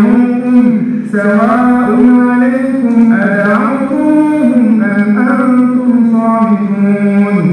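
An imam's single male voice reciting the Quran in a melodic chant during the standing part of a congregational prayer, with long held notes and gliding pitch.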